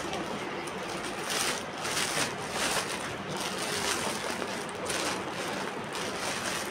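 Clear plastic packaging rustling and crinkling around a garment as hands press and move it, in a series of short surges.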